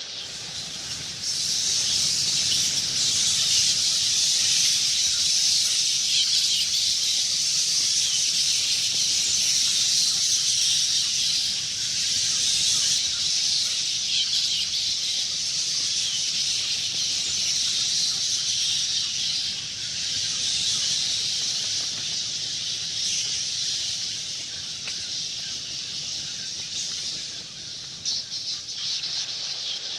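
A swarm of bats chittering: a dense, continuous mass of high-pitched squeaks and twitters, growing louder about a second in.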